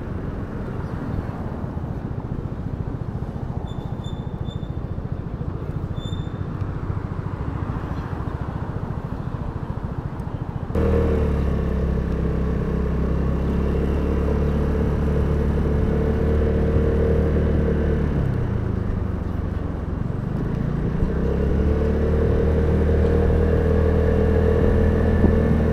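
Vespa GTS 300 scooter's single-cylinder four-stroke engine under way. At first rushing wind and road noise cover it, then an abrupt change about ten seconds in brings the engine out clearly. Its pitch drops as the scooter slows and rises again as it speeds up.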